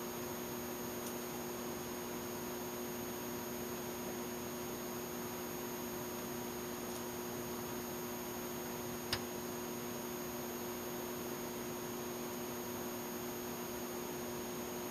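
Steady electrical hum with a few held tones over a faint hiss, with one small click about nine seconds in.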